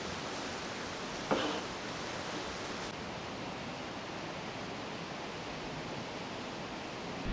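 Steady rushing outdoor noise, with one short ringing knock a little over a second in.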